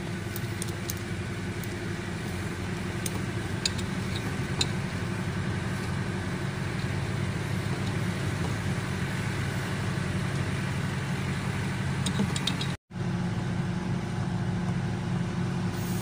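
Steady low mechanical hum with a few light metallic clicks and taps as a brass charging-hose fitting and nut are handled and screwed onto a refrigerator compressor's suction line. The sound cuts out for an instant about thirteen seconds in.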